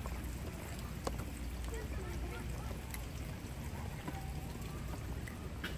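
Outdoor ambience of a group on foot: faint distant voices over a steady low rumble, with a light click about a second in and another near the end.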